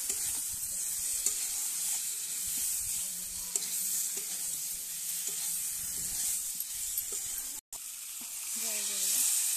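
Spiced whole potatoes sizzling in hot oil in a metal wok, stirred and scraped with a metal spatula, with small clicks of the spatula against the pan. Near the end, water is poured into the hot pan and the hiss briefly grows louder.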